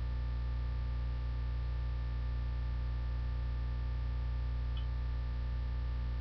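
Steady electrical mains hum with its overtones and a few faint steady higher tones, picked up by the recording microphone, with one faint tick about five seconds in.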